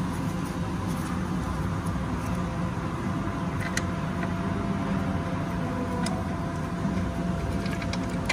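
A steady low mechanical hum with a few faint steady tones above it, and a few light clicks from hands working the fittings on engine-bay pipes, about halfway through and near the end.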